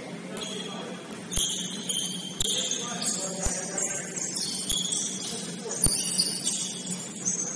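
A basketball bouncing on a hardwood court, sharp thuds about once a second, with many short, high-pitched sneaker squeaks from players moving on the floor. A steady low hum runs underneath.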